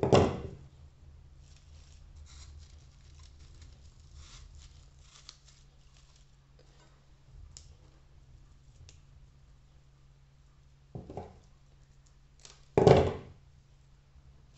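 Florist scissors cutting dried gypsophila stems: a loud snip at the start, a quieter one about eleven seconds in and another loud one just after. Faint crackly rustling of dried flowers being handled comes in between, over a steady low hum.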